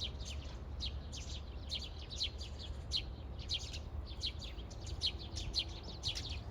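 Small birds chirping: short, quick downward chirps, two or three a second, over a steady low rumble.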